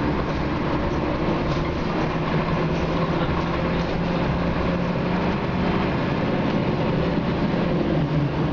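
Scania K93CRB single-deck bus heard from inside the passenger saloon while under way: its rear-mounted 9-litre six-cylinder diesel runs steadily under the road and body noise.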